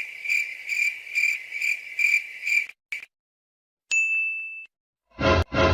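Comedy sound effects: a high tone pulsing about twice a second stops a little before halfway, followed by a click and then a short high ding. Two loud buzzy blasts come near the end.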